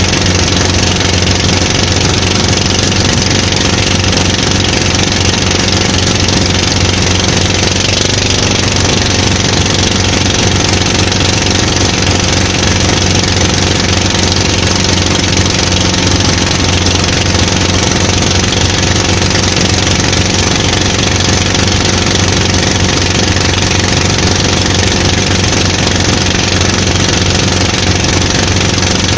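Outrigger boat's engine running loud and steady under way, a constant low drone that holds the same speed throughout.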